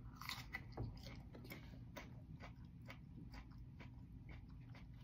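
Faint, irregular crunching clicks of a man chewing a bite of a raw red superhot chili pepper.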